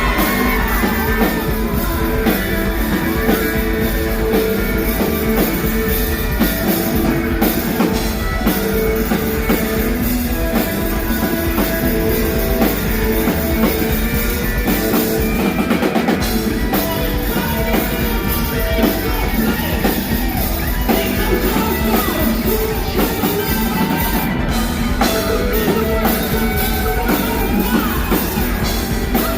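A rock band playing live, with drum kit, guitars and singing over a dense, continuous sound.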